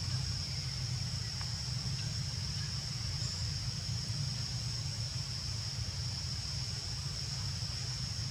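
Steady background ambience: a constant low rumble with a continuous high-pitched drone over it.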